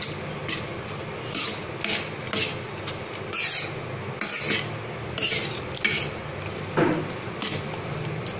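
Metal spoon stirring thick makhana (fox nut) kheer with dry fruits in a pan, scraping along the pan in irregular strokes, roughly one a second.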